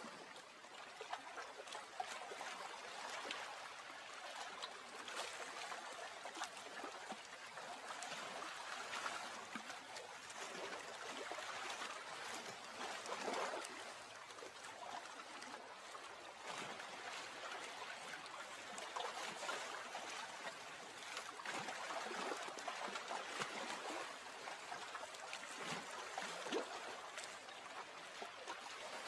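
Soft, steady trickling and splashing of water, a continuous irregular patter of small splashes without a rhythm.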